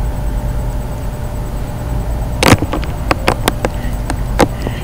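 Handling noise on a handheld camera's microphone over a steady low rumble: from about halfway, a run of sharp, irregular clicks and knocks, about three a second, the first one the loudest.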